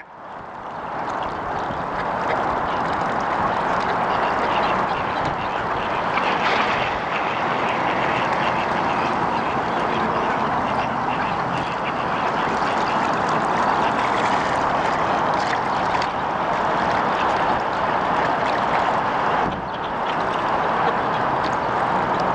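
A flock of mallard ducks quacking, a dense chorus of overlapping calls that fades in over the first two seconds and then holds steady.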